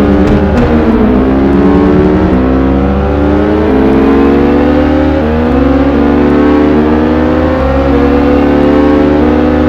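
Superbike engine accelerating hard through the gears. The pitch climbs and drops back at each upshift, about every two seconds.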